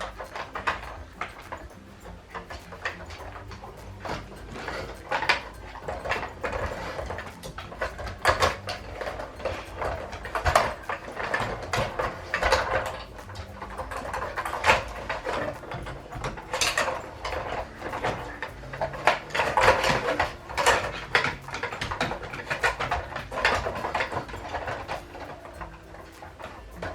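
Huskies nosing and pawing at dog treat puzzles: irregular clattering and knocking of the puzzle pieces, some knocks sharper than others.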